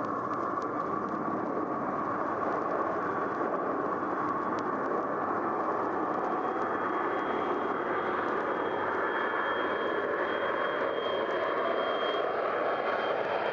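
Boeing 707 jet airliner coming in to land: a steady jet roar that grows slowly louder, with a high whine joining about halfway and a tone rising in pitch near the end. Faint vinyl crackle lies under it.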